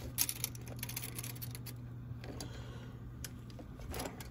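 Scattered light clicks and taps of hands fitting a cap into an embroidery machine's cap frame, over a steady low hum.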